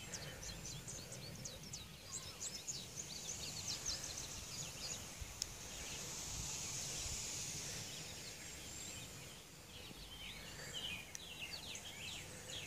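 Faint outdoor birdsong: many short high chirps in two spells, through the first few seconds and again near the end, over a soft steady hiss.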